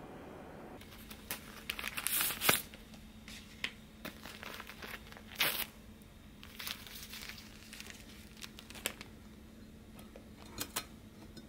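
Paper drip-coffee bag being torn open and handled: a series of short crinkling and tearing sounds, loudest about two seconds in and again around five and a half seconds, with two quick crinkles near the end as the bag is hooked onto a glass mug.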